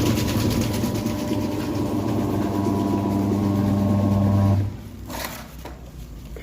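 Washing machine motor running with a steady, loud electrical hum, then cutting off abruptly a little over four and a half seconds in.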